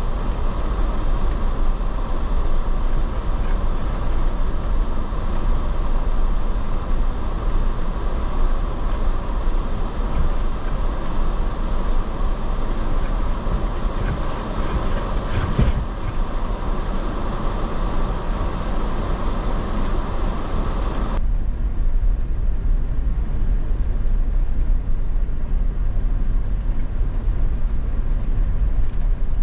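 A vehicle driving, with steady engine and road rumble. The upper part of the sound drops off suddenly about two-thirds of the way through, leaving a deeper rumble.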